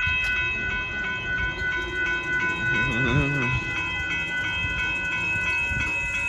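Amtrak Texas Eagle passenger train rolling past with a low rumble from its wheels and cars. Over it runs a steady, high-pitched ringing tone that pulses evenly.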